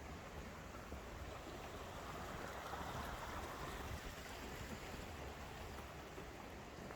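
Stream water rushing steadily over rocks. It swells a couple of seconds in and eases again toward the end.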